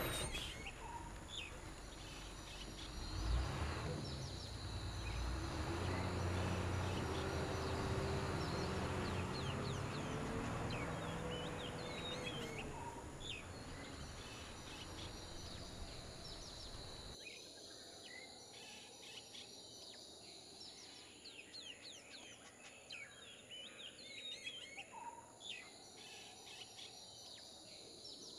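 A bus engine runs and gradually fades as the bus drives away, with birds chirping over it. About two-thirds in, the sound drops abruptly to a quieter countryside bed of many short bird chirps and a steady insect buzz.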